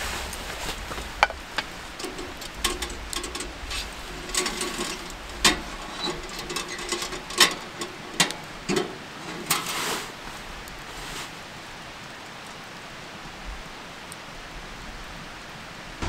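Wood campfire crackling, with sharp irregular pops and snaps over the first ten seconds, then a steadier low hiss.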